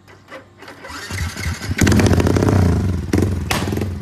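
Yamaha Y15ZR's 150 cc single-cylinder four-stroke engine starting through an aftermarket King Drag exhaust. It catches about a second in and then runs loud with a fast, rhythmic exhaust beat, an ECU tune meant to give a rumble idle.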